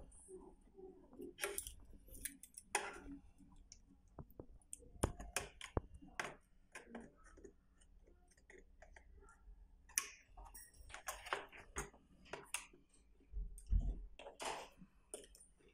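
An Allen key turning a small screw while pliers hold the nut on a plastic bike fender and its metal stay: irregular small clicks and light scrapes of metal on metal and plastic.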